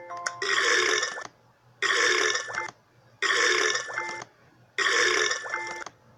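A loud burp about a second long, repeated four times at even spacing of about one and a half seconds, each copy near-identical, as if the same burp is looped.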